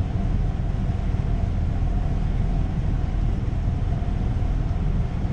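A steady low rumble with a faint constant hum above it, an unchanging machine-like background drone; no separate sound of the blade cutting the belt stands out.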